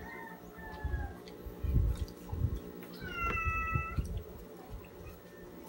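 Domestic cat meowing: a faint falling meow at the start and a clearer, drawn-out meow about three seconds in. Dull low thumps come in between.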